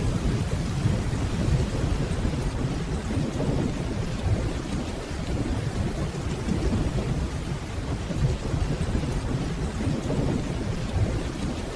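Steady rainfall with a low, continuous rumble of distant thunder underneath.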